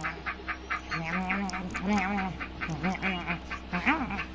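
A man laughing hard in quick, repeated pulses, about five or six a second, with his voice wavering up and down between them.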